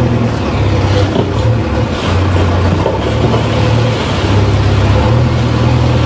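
Backhoe loader's diesel engine running under load, its speed rising and falling every second or so as the front bucket pushes and spreads crushed stone, with a rough scraping of the stone under the bucket.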